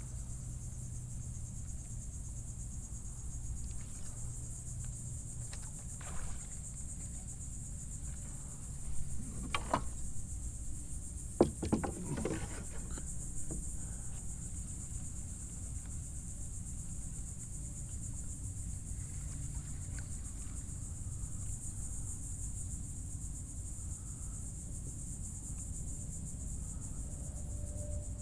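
Steady high-pitched insect drone from the mangroves over a low outdoor rumble, with a few short knocks and clatters of gear about a third of the way in.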